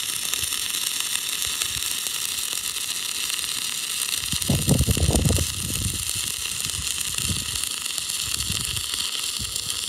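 Stick-welding arc of a 3/32-inch 7014 electrode run on DCEN, burning steadily along a horizontal bead. About halfway through, a louder low knocking lasts for about a second.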